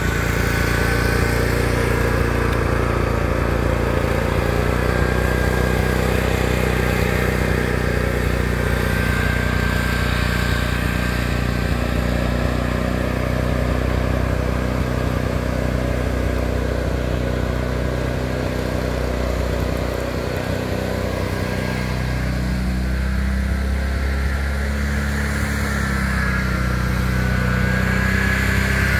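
Riding lawn tractor's small engine running steadily as it is driven around; about two-thirds of the way through the note dips briefly, then picks up higher.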